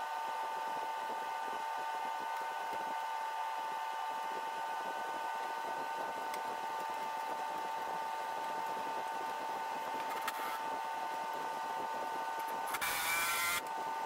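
A steady machine hum with a high, even tone runs throughout. Near the end, a cordless power tool runs in one short burst of under a second.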